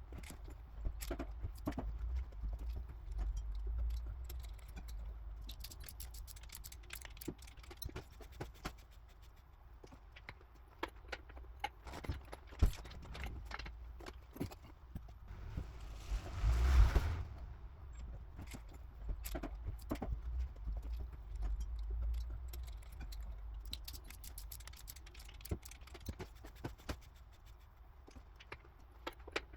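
Metal tools and engine parts clicking and clinking at irregular intervals during hands-on engine assembly, over a low rumble, with one louder knock about two-thirds of the way through.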